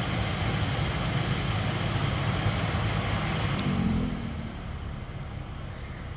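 VW Polo 9N heater blower motor running with a steady rush of air and a low rumble, the noise that made the dashboard vibrate. A little past halfway the fan-speed switch clicks and the blower drops to speed 1, after which it runs much quieter.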